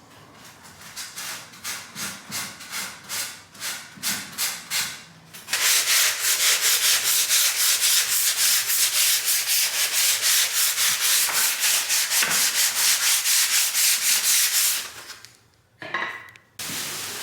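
Sandpaper rubbing back and forth by hand on a wooden gate: lighter, slower strokes for about five seconds, then louder, quicker strokes about four or five a second for some nine seconds, stopping near the end.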